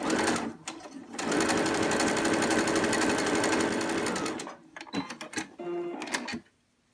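Baby Lock computerised sewing machine sewing an overcast stitch along a fabric edge with the overcast foot. After a short burst at the start it runs steadily for about three seconds, a rapid even chatter of needle strokes. It then stops, with several clicks and a brief whirr.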